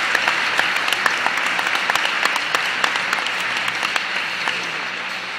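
Theatre audience applauding: many hands clapping, thinning and fading toward the end.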